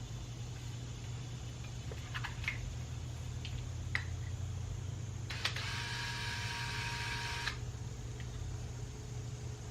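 A few light clicks and taps of handling, then a power drill runs for about two seconds, boring a hole through a small aluminum mounting plate, with a steady whine over the cutting noise. A steady low hum runs underneath.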